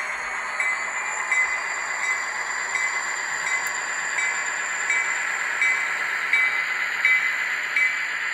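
ScaleTrains SD40-2 model locomotive's DCC sound decoder playing a turbocharged EMD 645 diesel running under power, heard through the model's small speaker. A high turbo whine and a steady tone run throughout, with a faint regular beat.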